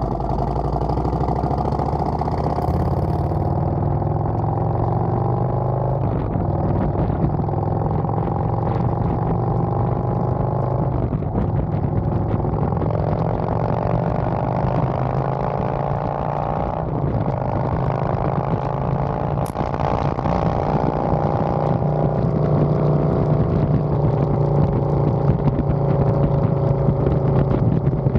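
Touring motorcycle engine running under way, pulling through the gears. Its pitch climbs steadily, drops back sharply at each of three upshifts, and climbs again.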